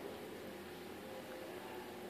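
Faint, thin whines from a four-week-old Doberman puppy over a steady low hiss.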